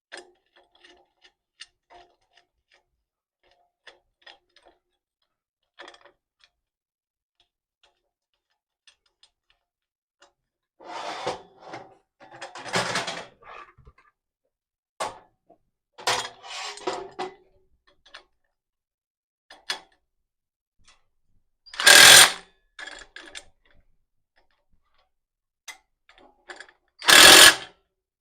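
Tool work while assembling a steel bicycle rack: scattered light clicks and knocks, ragged clattering spells about a third and halfway through, and two loud bursts about half a second long in the last third.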